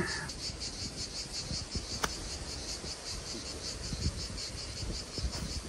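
Insects chirping in a fast, even pulse, with one sharp click about two seconds in.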